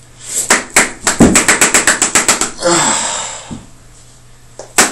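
A can of moist snuff being packed: a quick run of about a dozen sharp taps on the lid, roughly ten a second, followed by a short rustle and a couple more clicks near the end.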